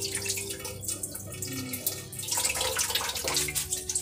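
Water splashing and running as rice is rinsed by hand in a woven bamboo basket, the splashing thinning a little past halfway.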